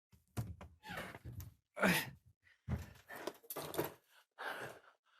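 A person's frustrated sighs and groans: short breathy bursts, some with a falling pitch, with a soft thunk among them.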